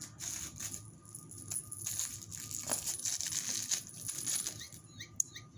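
Cat toys rattling and clattering on the floor as a cat bats them around, with a few short high chirps near the end.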